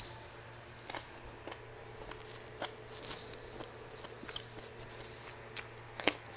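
Close-up eating sounds: wet chewing and lip smacking on spicy beef rib meat, with fingers handling the sauced meat. About six seconds in comes one sharp crunch as a fresh cucumber slice is bitten, the loudest sound.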